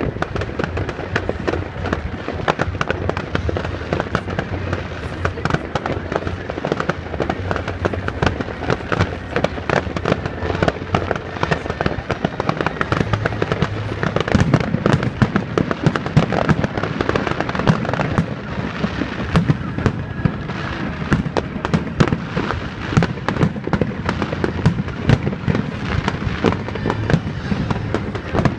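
Fireworks grand finale: a rapid, continuous barrage of shell bursts, bangs and crackle with no let-up.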